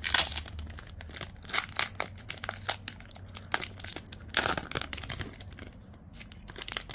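A trading-card pack wrapper being torn open and crinkled in the hands: irregular crackling and rustling, with louder tearing bursts at uneven moments.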